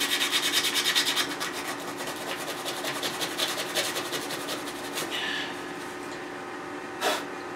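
Rapid back-and-forth hand strokes rubbing on the wooden bandsaw box. They are quick and loud at first, then slow and fade, with a short knock near the end.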